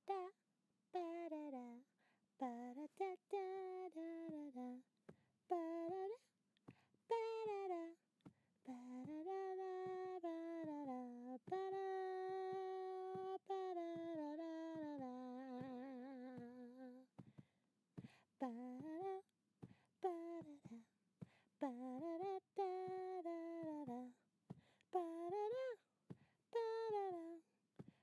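Music track of a single voice humming a tune with no accompaniment, in short rising-and-falling phrases with brief gaps between them. About halfway through comes one long held note that steps down to a lower pitch.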